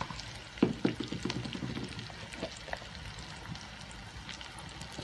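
Sukuti (dried meat), onion and tomato sizzling steadily in hot oil in a metal kadhai, with a steel ladle clacking and scraping against the pan several times in the first second and a half.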